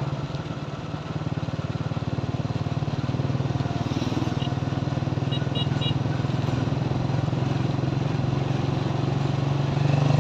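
Motorcycle engine running while riding, heard from the rider's seat, a steady fast pulsing note that gets a little louder after about a second.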